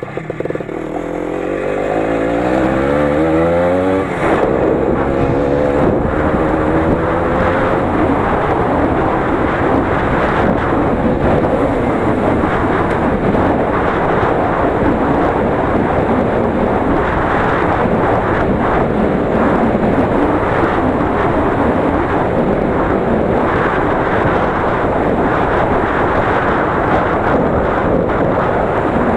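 20 hp Lider motorcycle engine accelerating, its pitch rising through the first four seconds, dropping at a gear change about four seconds in and climbing again, then running steadily at speed along a rough forest track, with wind on the microphone.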